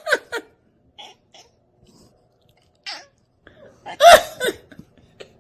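A cat coughing in short, sharp hacks: a quick run of coughs at the start, a few fainter ones, then the loudest bout of three or four coughs about four seconds in.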